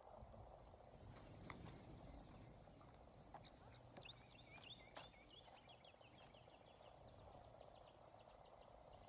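Quiet outdoor ambience with faint birds chirping: a high trill near the start and a string of quick chirps in the middle.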